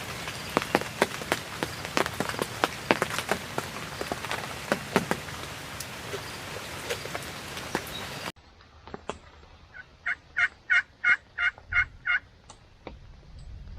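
Rain pattering with many drop ticks, which stops abruptly at a cut. Then a wild turkey gobbles once, a quick rattling run of about eight notes.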